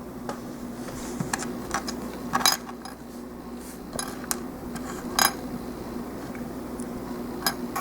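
Small hard plastic model kit parts clicking and clacking as they are handled and fitted together, a handful of sharp irregular clicks over a steady low hum.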